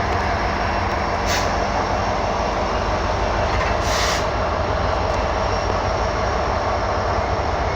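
Freight train rolling past close by: a steady rumble of locomotives and rail cars on the track, with two brief hisses about a second and four seconds in.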